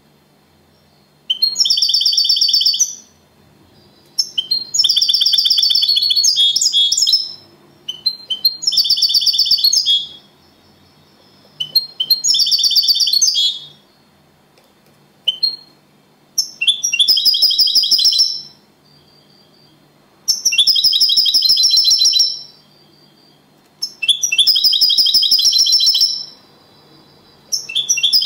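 European goldfinch singing the Spanish 'copia Málaga' song. It sings phrases of fast, rapidly repeated notes about two seconds each, separated by short pauses, about seven phrases in all.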